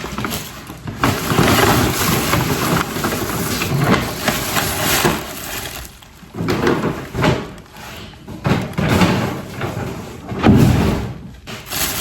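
Packaging rustling and crinkling in uneven bursts as purchased items are unwrapped and handled, with a few light knocks.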